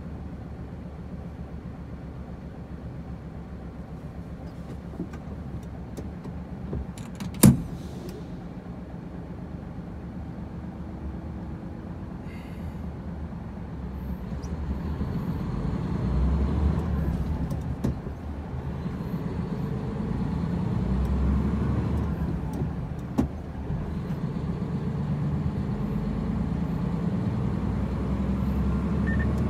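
Hino truck's diesel engine and road noise heard from inside the cab while driving, the engine note swelling twice as the truck picks up speed, with a brief drop between. A sharp click about seven seconds in.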